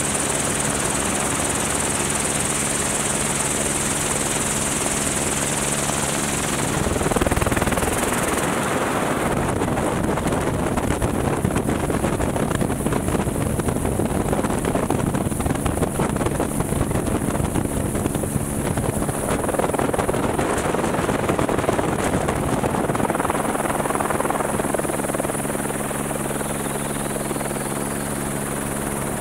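Helicopter running, with a steady rotor hum and a high turbine whine. From about a quarter of the way in until near the end, a louder rushing noise swamps the hum.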